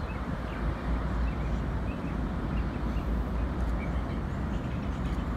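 Container ship's engines giving a steady low drone as the ship passes, with a few faint bird chirps.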